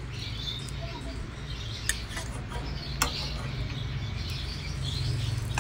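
A metal spatula working through rice in a nonstick frying pan, with two sharp taps against the pan about two and three seconds in, over a steady low hum. Faint bird chirps come in from the background.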